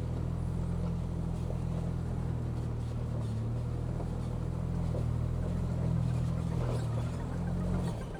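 Ford Bronco engine running steadily at low trail speed, a low even drone that shifts just before the end.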